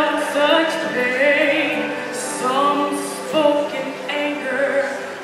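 A young woman singing a gospel song solo into a microphone, amplified through a PA over instrumental accompaniment. She holds long notes with vibrato.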